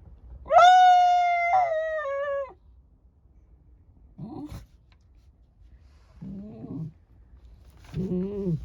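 Shiba Inu howling: one long, high howl of about two seconds that steps down in pitch partway through, followed by a few short, much lower calls.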